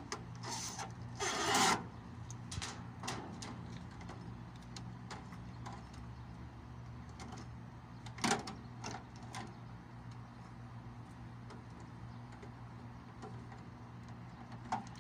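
Gloved hands handling wiring and a magnetic contactor in an air-conditioning unit's electrical panel: scattered rubbing, scraping and clicks, with a louder scrape a little after the start and a sharp clack about eight seconds in, over a steady low hum.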